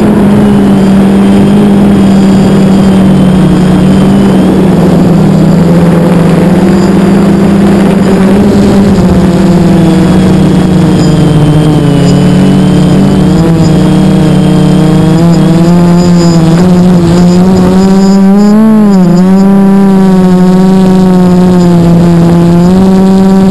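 Quadcopter's four Sunny Sky 2216 brushless motors and propellers buzzing loudly and steadily in flight, heard from a camera carried on the quadcopter. About three quarters of the way through, the pitch dips and wobbles with the throttle, then steadies again.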